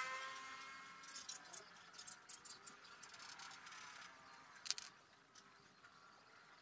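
Faint scratching of a Prismacolor colored pencil shading on drawing paper, in short strokes, with a sharper click a little before five seconds in.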